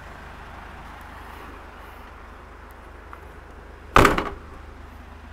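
The tailgate of a Mercedes-Benz Vito van is shut once, about four seconds in: a single loud thud that dies away within half a second, over steady low background noise.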